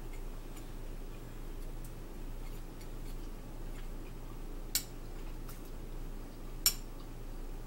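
Metal fork clinking against a ceramic plate: two sharp clinks about two seconds apart, with a few faint ticks, over a low steady hum.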